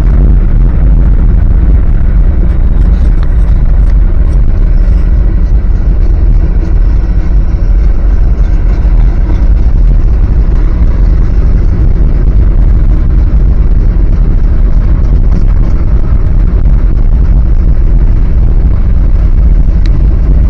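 Old Dodge pickup truck driving: a loud, steady low rumble of engine and road noise.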